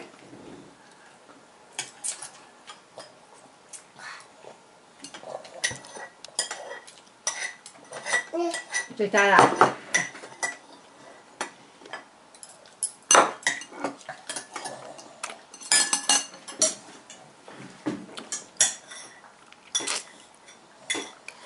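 Scattered, irregular clinks of a spoon and ceramic plate being handled on a high-chair tray, with a young child's brief vocalizing about nine seconds in.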